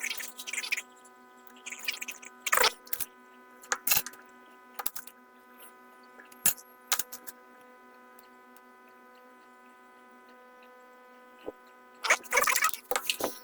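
A steady electrical hum of several even tones, broken now and then by short scraping and ticking sounds of small hand tools working on the solder balls of a PS5 APU, busiest near the start and near the end.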